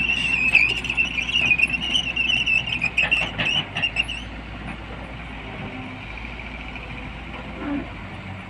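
Tata Hitachi EX200LC excavator running, with a high wavering metallic squeal and a few sharp knocks from the machine for about four seconds, then only the steady engine.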